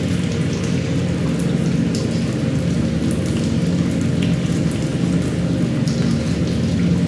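Steady rain with scattered drips and patters, over a low, steady drone.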